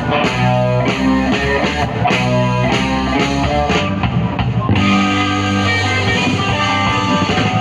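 Live blues band playing an instrumental passage, electric guitar over a drum kit. The drum strokes stop about five seconds in and held notes ring on.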